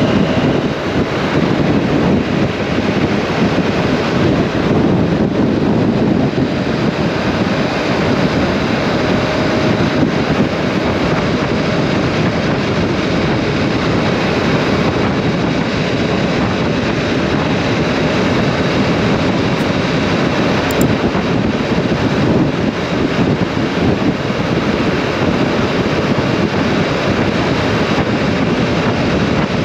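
KTM 790 Adventure parallel-twin motorcycle riding at road speed, its engine mixed with steady wind rush on the camera microphone.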